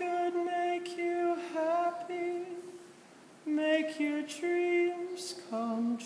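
A single male voice singing a slow ballad a cappella in long held notes, pausing for about a second midway and ending on a lower note.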